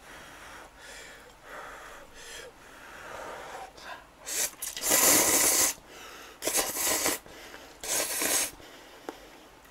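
A person slurping thick instant ramen noodles (Odongtong-myeon) in several loud, airy slurps. The longest comes about five seconds in, with shorter ones after it.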